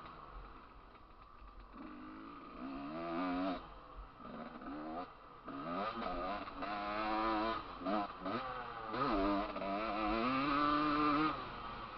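Motocross bike engine heard from the bike while riding: quiet at first, then revving up and down in repeated surges as the throttle is opened and closed, with short drops between them, and easing off near the end.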